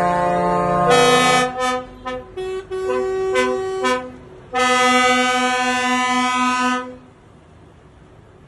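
Truck horns honking in protest as a convoy of lorries drives past: a long blast, then a run of short toots from several horns, then another long blast of about two seconds. After that only the low, steady noise of the passing trucks remains.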